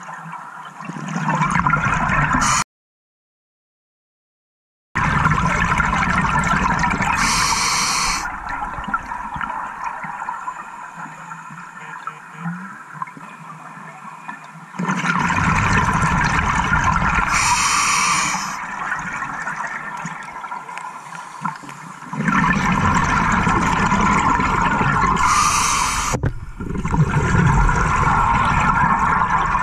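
Scuba regulator breathing underwater: several loud rushes of exhaled bubbles, each ending in a short high hiss of the regulator, with quieter stretches between breaths. The sound cuts out to total silence for about two seconds near the start.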